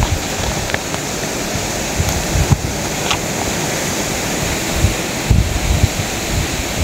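Steady rushing noise with a few soft low thumps, about two seconds in and again around five seconds.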